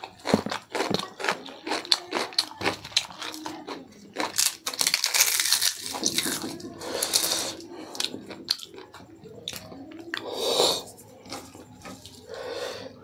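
Close-miked eating with the hands: fingers mixing pork curry into rice, a crisp papad being crumbled and crunched, and chewing, with many short sharp clicks.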